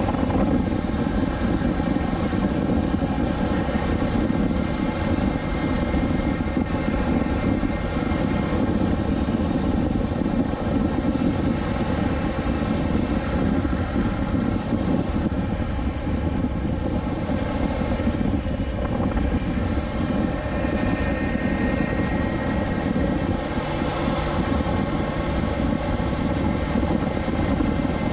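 BMW S1000XR inline-four engine at a steady cruise, an even drone with little change in pitch.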